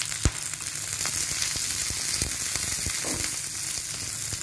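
Dried red chillies, onion, garlic and ginger sizzling in hot oil in a nonstick frying pan, with a steady hiss. A steel spatula stirring them scrapes and knocks against the pan several times.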